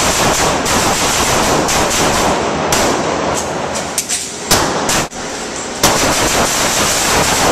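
Rapid, overlapping rifle fire from several AR-15 carbines on an indoor range. The shots run together into near-continuous noise, with a few sharper cracks standing out.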